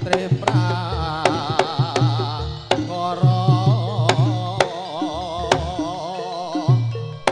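Javanese jaranan music played live: deep drum strokes and sharp taps under a wavering melody with heavy vibrato.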